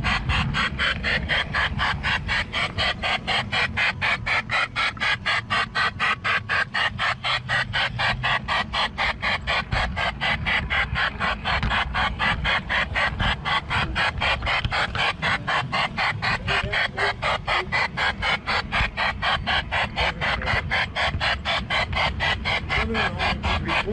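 LGB G-scale garden-railway train running along its track, heard from on board: a rapid, even clicking at about four to five a second over a steady low rumble.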